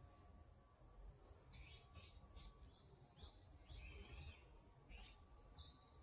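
Woodland birds calling, one sharp high call about a second in, then a run of shorter chirps, over a steady high insect buzz.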